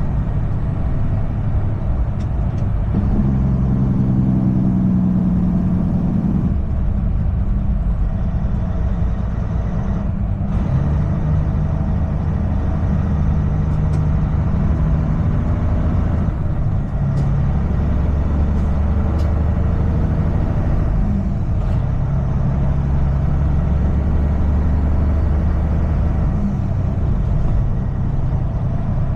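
Semi truck running down the road, heard from inside the cab: a steady low engine drone with road noise, its pitch stepping up or down a few times.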